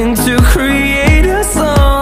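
Background pop music with a steady beat, about two beats a second, under a held melody line.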